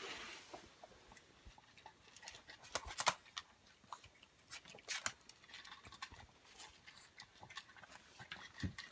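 Chihuahuas eating: irregular small crunches and clicks of chewing. A louder pair of clicks comes about three seconds in.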